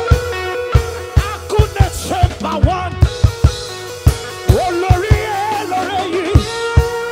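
Live praise and worship band music with a drum kit keeping a steady driving beat under bass, a held keyboard chord and a bending melody line.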